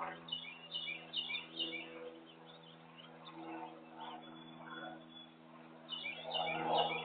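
Small songbirds chirping in quick clusters, a burst in the first two seconds and a louder one near the end, over a steady low hum.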